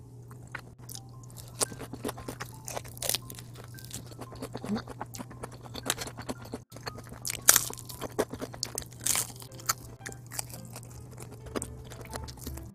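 Close-up crunching and chewing of crispy fried chicken batter coated in seasoning powder, with irregular sharp crunches throughout.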